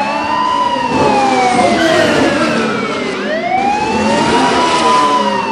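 A wailing siren sweeping slowly up and down, two long rise-and-fall sweeps, over a steady background noise.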